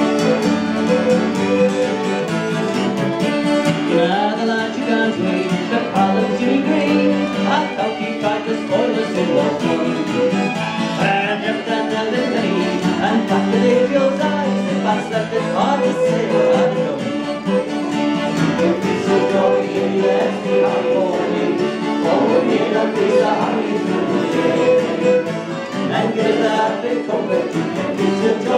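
Folk trio playing a Northumbrian song live on fiddle, piano accordion and strummed acoustic guitar, a steady lively tune that runs without a break.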